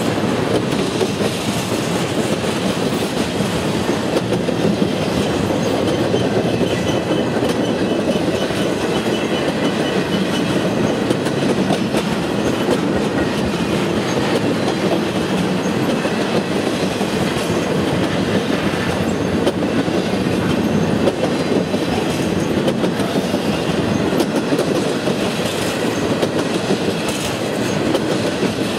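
Norfolk Southern intermodal freight train's empty flatcars rolling past close by: a steady, loud rumble and clatter of steel wheels on the rails that does not let up.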